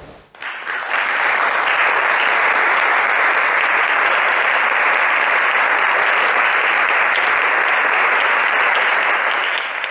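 Audience applauding, starting about half a second in and going on steadily until it fades away at the very end.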